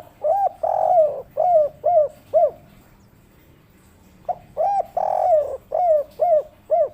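Spotted dove (tekukur) cooing in its 'kuk 3' pattern: two phrases, each a short coo and a longer one followed by three short coos.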